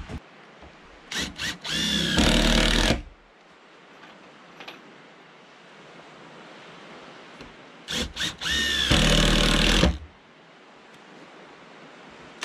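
Cordless drill driving screws into a window frame: a couple of short trigger taps, then the motor spins up with a rising whine and runs for about a second. The same pattern comes again about eight seconds in.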